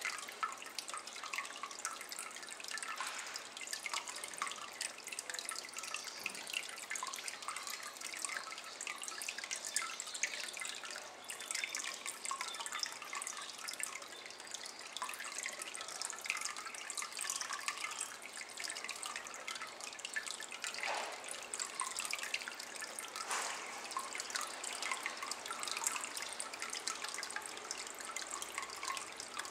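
A thin stream of water trickling and dripping steadily into a shallow ceramic water basin, a continuous run of small splashes on the water surface.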